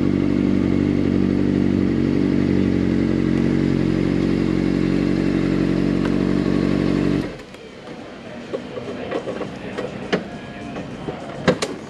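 Honda CBR600RR's inline-four engine idling steadily, then switched off about seven seconds in. Light clicks and clatter follow, with two sharp knocks near the end.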